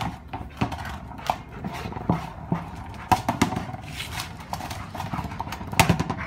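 Rottweiler nosing and shoving a large ball around a concrete patio: irregular knocks and scuffs of the ball and its paws, with the dog panting, and a louder cluster of knocks near the end.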